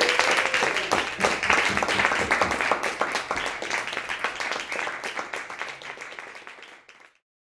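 Audience applauding, a dense patter of many hands clapping that slowly thins and fades, then cuts off suddenly near the end.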